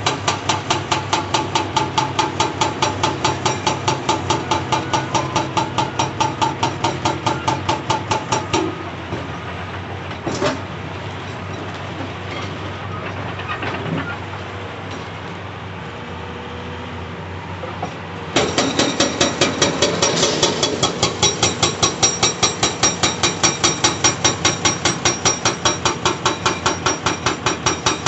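Hydraulic breaker on a Caterpillar 349E excavator hammering rock in a rapid, even train of blows. About eight seconds in it stops for about ten seconds, leaving the excavator's diesel engine running with a couple of single knocks, then it starts hammering again, louder.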